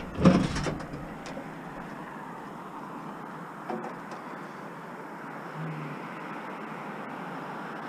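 Steady hum of passing road traffic, with a short knock just after the start.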